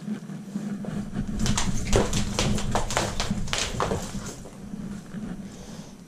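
A heavy rubber-jacketed power cable being coiled by hand: the cable rustles and slaps against itself in a quick run of about a dozen soft strikes, roughly three or four a second, from about a second and a half in to about four seconds in.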